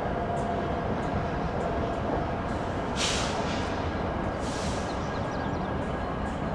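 A consist of diesel locomotives led by a Norfolk Southern SD60E rumbles steadily as it rolls slowly forward, with two short hisses about three and four and a half seconds in.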